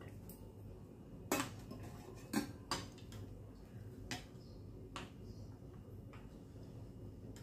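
Steel spoon stirring coconut milk and jaggery in a glass bowl, clinking against the side of the bowl about six times at irregular intervals, the loudest clinks in the first half. The stirring dissolves the jaggery into the coconut milk.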